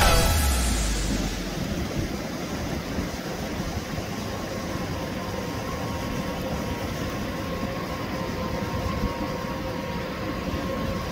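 Background music fades out in the first second or so, leaving a steady wash of surf and wind with the faint, steady drone of jet ski engines running out on the water.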